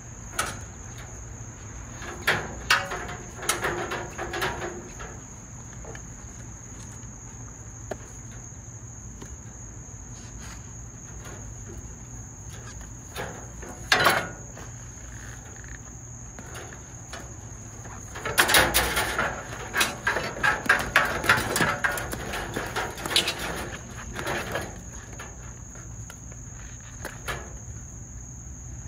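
Crickets chirring in a steady, high, continuous tone. Irregular bursts of scraping and clicking come a few seconds in, once sharply midway, and in a dense cluster for several seconds about two-thirds of the way through.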